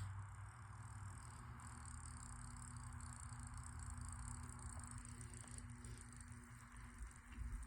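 Harbor Breeze Armitage ceiling fan running steadily: a faint, even motor hum under a soft rushing noise, with a few low bumps near the end.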